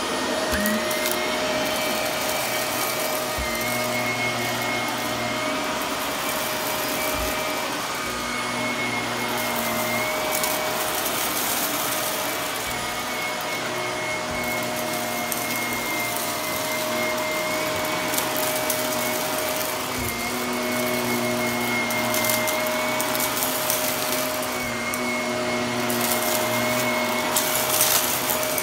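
Shark Navigator upright vacuum cleaner running over carpet, a steady motor whine with scattered crackles of small debris being sucked up. The owner hears it making a noise at this point and takes it as a sign the vacuum needs a deep clean.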